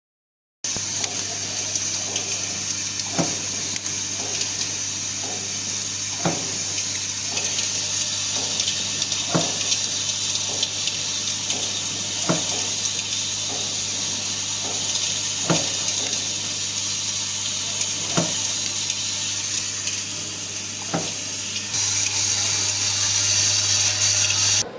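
Riveting machine running: a steady motor hum under a strong hiss, with a sharp knock about every three seconds as each rivet is struck, and fainter ticks between. The hiss grows louder near the end.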